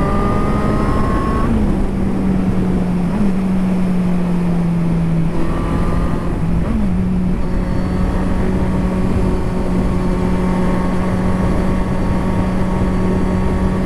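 Motorcycle engine running steadily while riding, with a dense rush of wind noise underneath. The engine note dips briefly and picks up again about one and a half seconds in, around three seconds, and again a little past the middle.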